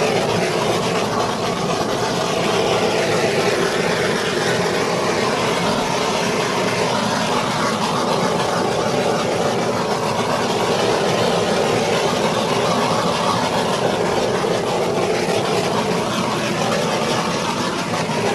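Handheld butane torch burning with a steady hiss as it is passed back and forth over wet acrylic pour paint.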